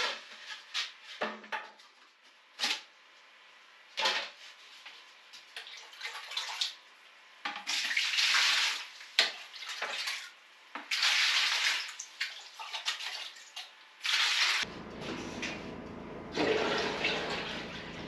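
A few knocks from a plastic barrel lid being handled, then water scooped with a ladle from a plastic barrel and splashing into a plastic bucket in several pours of about a second each. Near the end, water pouring from the bucket into the tank of a heated wash basin.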